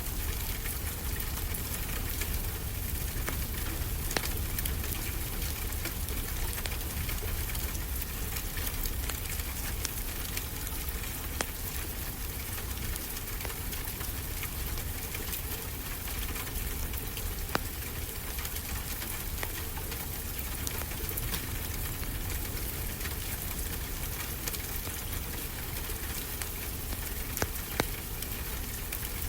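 Steady rain falling, with the occasional sharp crackle and pop of a wood fire in a fireplace.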